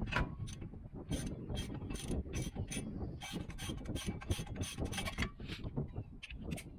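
Hand ratchet wrench clicking in a steady run, about three clicks a second, as the nut on the truck's upper ball joint is backed off.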